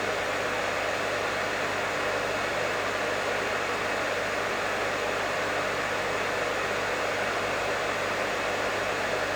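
Professional hair dryer running steadily: an even rush of blown air over a steady low motor hum.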